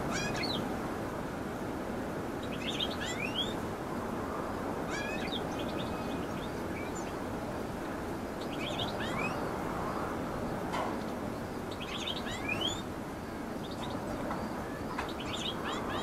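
Small finches twittering in short calls of quick, up-and-down notes, one every two to three seconds, over a steady low rushing background noise.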